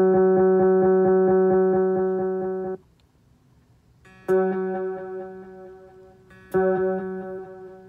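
Electric guitar note through a Donner Ultimate Delay pedal: a note pulsing with fast, even repeats, about five a second, that cuts off suddenly. After a short pause come two more single notes a couple of seconds apart, each dying away.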